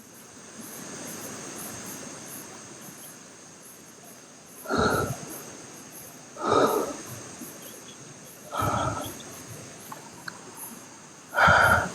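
Crickets chirping steadily, broken by four short, loud, noisy bursts of unclear source, roughly two seconds apart.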